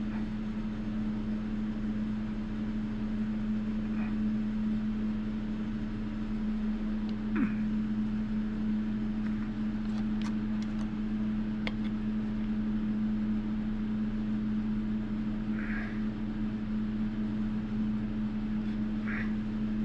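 A steady machine hum with a strong low tone, continuous throughout, with a few faint light ticks and taps scattered through it.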